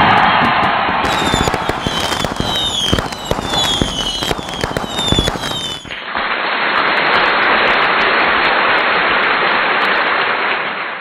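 Firecrackers going off in a rapid, irregular string of bangs, with whistling fireworks that fall in pitch again and again. About six seconds in this gives way to a steady, even crowd noise.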